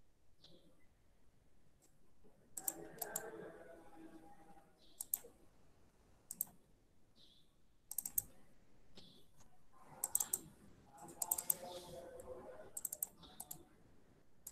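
Faint, irregular clicks of a computer mouse and keyboard.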